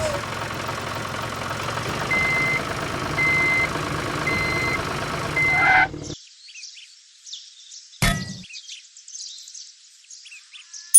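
Truck engine running with a reversing alarm beeping four times, about once a second, then cutting off suddenly. Faint bird chirping follows, with a single knock partway through.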